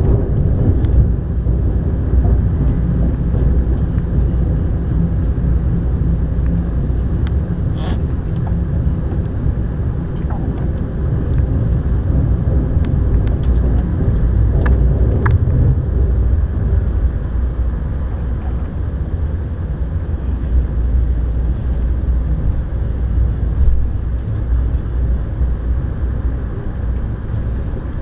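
Amtrak California Zephyr passenger train running, heard from inside the coach as it rolls across a steel river bridge: a steady low rumble of wheels on track, with a few faint clicks around the middle.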